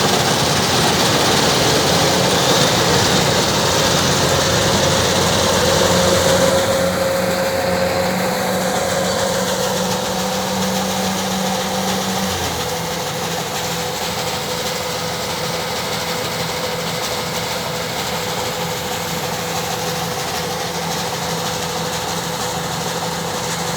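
Kubota DC-105X combine harvester's diesel engine running steadily. About halfway through its note shifts and the level eases slightly.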